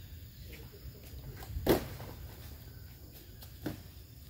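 Two short knocks, a loud one under two seconds in and a softer one near the end, over a low steady rumble.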